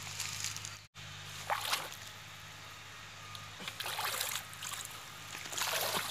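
Shallow pond water sloshing and splashing around a clay pot as it is worked by hand, in three separate splashes a couple of seconds apart, over a steady low hum.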